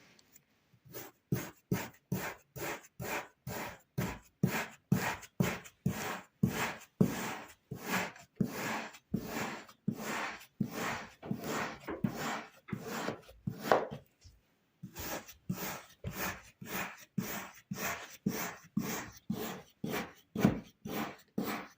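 A blade slicing repeatedly through packed kinetic sand, a crisp cut about two to three times a second, with a short pause about fourteen seconds in.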